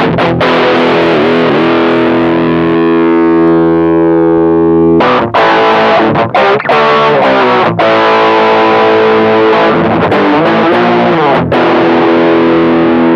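Electric guitar played through a Caline High Peak distortion pedal, giving heavily distorted chords. A chord rings out for about two seconds early on, then a run of struck chords follows, choked off briefly several times.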